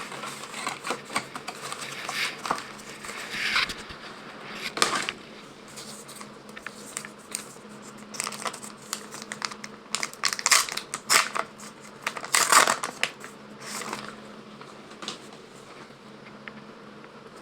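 Trading-card pack wrappers crinkling and tearing open as the cards are pulled out and handled, in irregular rustling bursts that are loudest about ten to thirteen seconds in.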